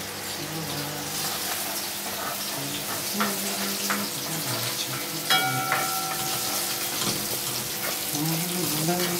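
Vegetables sizzling in hot oil in an aluminium pot on a gas stove, stirred with a metal spatula that clicks and scrapes against the pot. About five seconds in, a sharp metallic knock rings briefly.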